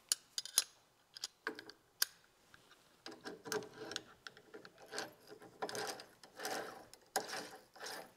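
Hand ratchet wrench clicking as the footpeg's mounting bolt is run in. A few sharp separate clicks come first, then from about three seconds in, repeated bursts of rapid ratcheting as the handle swings back and forth.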